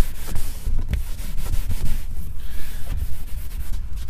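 Small leather-and-vinyl scrub brush scrubbing a leather car seat wetted with spray-on leather cleaner, in repeated back-and-forth strokes.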